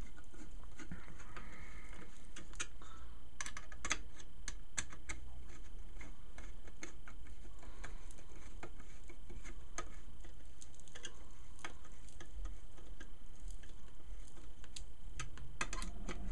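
Scattered light clicks and taps as a screwdriver drives screws that fix a hard drive into a metal drive cage, the clicks coming in small irregular clusters.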